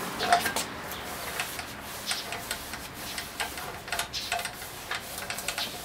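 Irregular light clicks and rubbing from a gloved hand scrubbing the inside of an alloy wheel with a wet towel.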